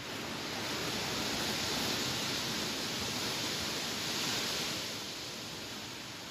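Wind blowing through grass: a steady rustling hiss that swells over the first second, holds, and eases off a little after about four and a half seconds.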